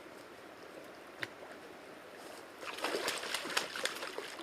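Water splashing and sloshing as a hooked brown trout thrashes at the surface, starting about three seconds in and lasting a second or so, after a single faint click.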